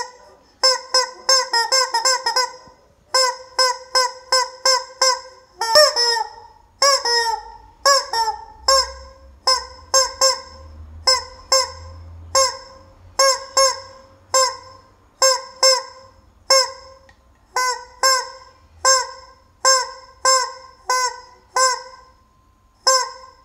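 Rubber chicken squeeze toy squawking over and over, each squeeze a short, shrill honk. A few come in quick runs near the start, then about one a second.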